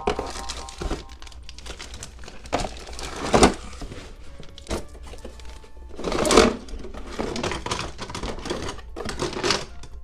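Toy packaging being handled: plastic bags crinkling, the cardboard box being shifted and plastic toy parts knocking together. The loudest rustles come about three and a half and six seconds in.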